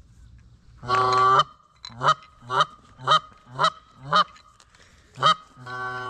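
Goose call blown by a hunter: a long honk about a second in, then five short clucks about half a second apart, a single cluck and another long honk near the end.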